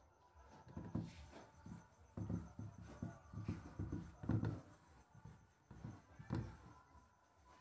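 A duster wiped back and forth across a whiteboard, rubbing off marker writing in a run of uneven strokes, heaviest about one, two, four and six seconds in.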